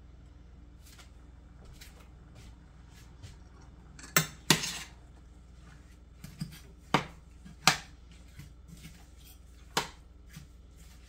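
A metal spoon clinking and scraping against a stainless steel saucepan as chunks of apple are stirred. After a quiet start come about half a dozen sharp clinks, spaced irregularly, with the loudest ones about four and a half and seven and a half seconds in.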